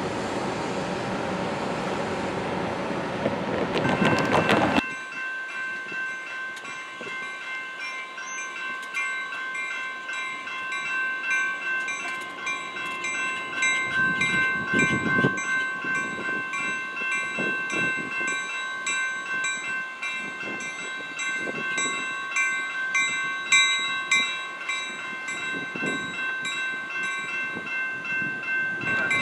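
For the first five seconds, an approaching commuter train with a diesel rumble that swells near the end. Then a railroad crossing bell rings in quick repeated strokes, with low rumbles now and then from the idling train.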